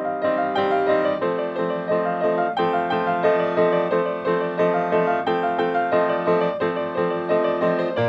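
Grand piano played in a steady, unbroken flow of notes. It is recorded through a large-diaphragm condenser microphone set to figure-8 with its low-cut filter and −10 dB pad switched on, so the deepest bass is trimmed.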